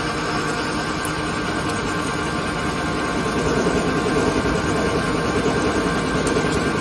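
ALCK6163X1500 CNC lathe running on test, its spindle and chuck turning a workpiece: a steady machine noise with a high whine. The sound grows a little louder about three and a half seconds in.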